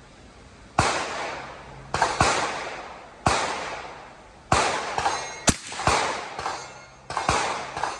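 Rifle gunshots, about eight over eight seconds, some in close pairs, each sharp crack trailing off in an echo; among them the 6.5 Creedmoor AR-style rifle fired from the bench.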